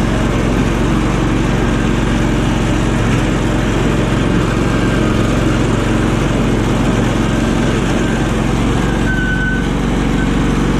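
1998 Cub Cadet 3205 riding mower's engine running steadily while the tractor drives across grass mowing, with its PTO-driven deck freshly repaired.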